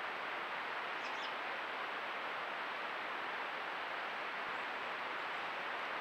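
Steady, even outdoor hiss with no distinct events, and a couple of faint high chirps about a second in.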